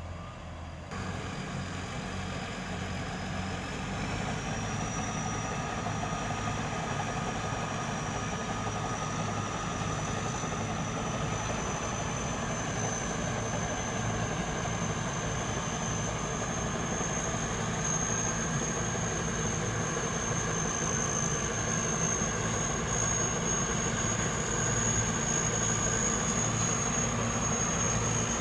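Thai Seng Yon 'Chao Phayu' combine harvester running steadily, a heavy engine drone with a thin high whine that climbs slowly in pitch from about four seconds in and then holds, as the harvester unloads its grain.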